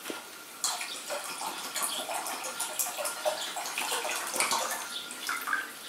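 Liquid pouring from an upturned small plastic bottle into an empty stainless steel saucepan, a steady splashing pour with many small irregular splashes, beginning about half a second in.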